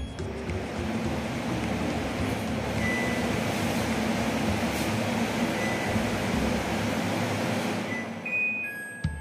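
Kitchen chimney (range hood) exhaust fan running: a steady rush of air that fades and cuts off near the end.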